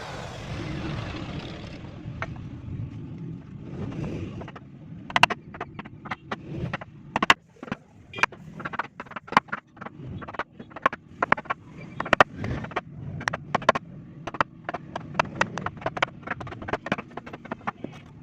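A low steady rumble for the first few seconds, then a long run of sharp, irregular knocks or taps, one to three a second.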